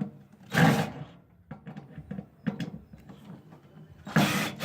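Clattering and scraping of hand tools against the sheet-metal parts of a microwave being dismantled. It comes in short bursts, a louder one about half a second in and another near the end, with small clicks and knocks between.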